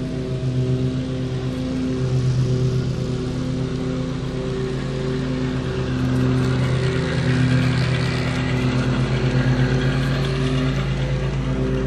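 G scale model diesel locomotive and container cars running past close by, with a steady, pulsing engine-like drone. The clatter of wheels on the track grows louder about halfway through as the locomotive and cars pass close.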